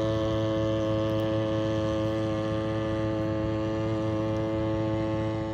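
Boat motor running at a steady speed: an even, unchanging hum with a strong low pitch and a stack of higher tones above it.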